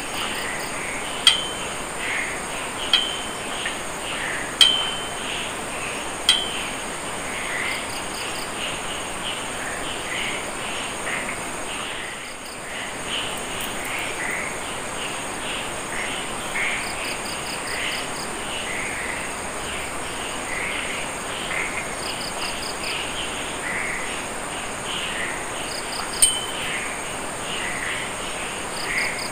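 Night insect chorus: crickets chirping in short pulsed trains over a steady high-pitched drone, with other calls repeating every second or so. Several sharp clicks, each with a brief ringing tone, come in the first seven seconds and once more near the end; they are the loudest sounds.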